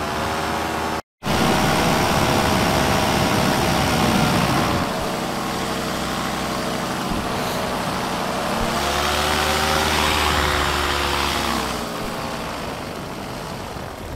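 Paramotor engine running in flight under wind noise, its pitch drifting gently up and down with the throttle. The sound drops out for an instant about a second in.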